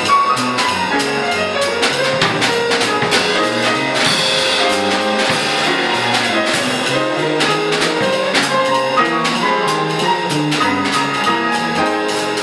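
Jazz piano trio playing up-tempo: upright piano running quick melodic lines over bass, with a drum kit struck with sticks, cymbals ringing on most beats.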